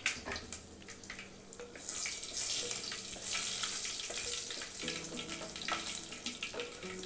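Dried red chillies and mustard seeds frying in hot coconut oil in a clay pot, a steady sizzle with a few crackles from the seeds popping, stirred with a spatula. The sizzle grows louder about two seconds in.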